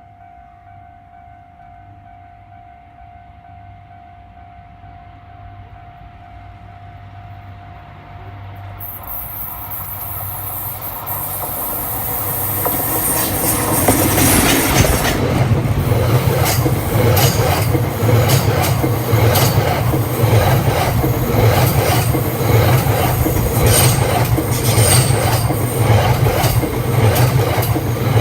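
Cassiopeia train approaching and passing at a level crossing. At first a faint steady tone of the crossing's warning bell is heard; from about a third of the way in the train grows louder, then goes by with a fast, even clatter of wheels over rail joints and a high hiss.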